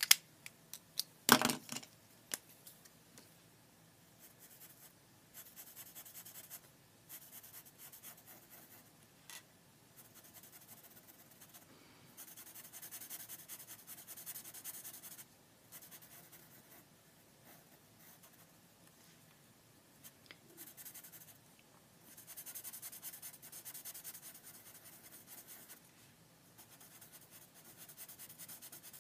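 Felt-tip Sharpie marker scratching across paper in runs of quick back-and-forth strokes, colouring in solid black areas, with short pauses between runs. A few sharp clicks and knocks in the first two seconds are the loudest sounds.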